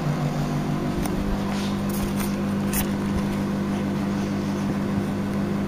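Steady electric hum from a running household appliance, even in pitch and level, with a few faint clicks.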